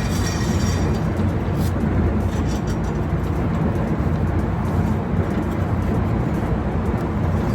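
Steady, loud machinery noise with a low hum, and a few faint light clicks near the start.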